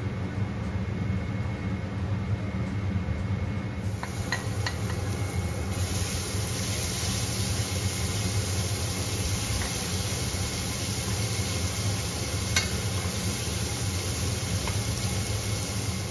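Minced garlic sizzling in hot oil in a stainless steel stockpot while a wooden spoon stirs it. The sizzle builds about four seconds in, with a few light clicks of the spoon on the pot, over a steady low hum.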